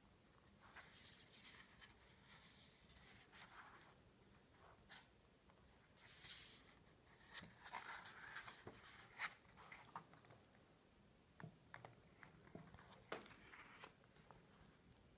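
Faint paper rustling and swishing as the pages of a small printed booklet are turned and handled, with a few light taps; the loudest swish comes about six seconds in.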